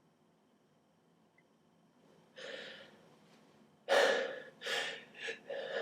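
A person's quick, noisy gasping breaths as a sneeze comes on: one faint breath, then a run of short catching inhalations from about four seconds in. The sneeze is being set off by pulling nose hairs.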